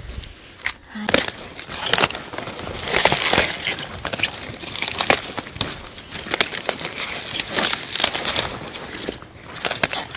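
Crisp crunching and snapping of cauliflower leaves and stems as a head is cut and handled, in irregular bursts of crackles.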